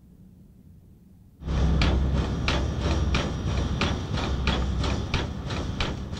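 A DB class 065 steam tank locomotive blowing off steam, with steam hissing from its open cylinder drain cocks and regular chuffs about three times a second over a low rumble. It starts suddenly about a second and a half in, after a faint low hum.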